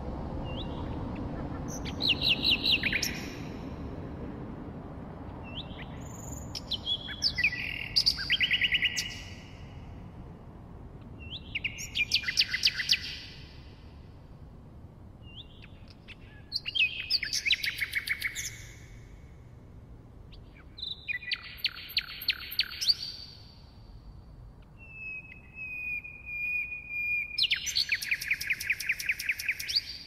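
Common nightingale singing: separate phrases every four to five seconds, each a fast run of rapidly repeated notes. Near the end a phrase opens with a long steady whistle before breaking into a rapid trill, over a low background hiss.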